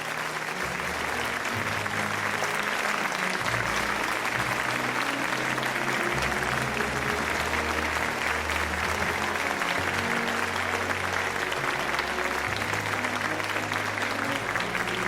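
A large crowd applauding steadily, with music of slow, sustained low notes underneath.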